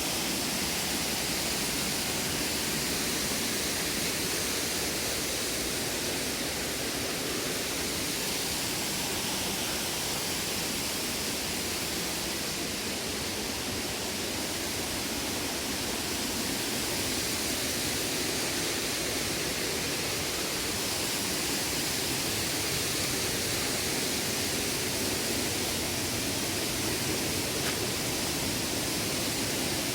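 Waterfall cascading over rock: a steady, even rush of falling water with no breaks.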